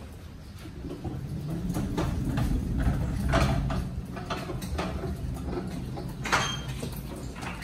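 Footsteps and knocks on a box trailer's wooden floor, over a low hollow rumble that swells through the middle, with a sharper clatter near the end.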